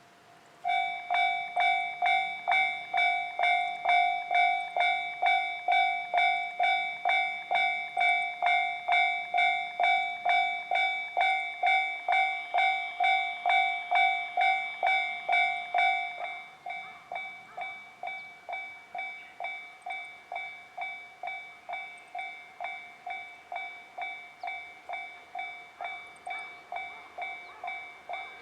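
Japanese railway level-crossing warning bell ringing, a clanging tone struck about twice a second. It starts about a second in, and about sixteen seconds in it drops to a noticeably quieter level and keeps ringing at the same rate.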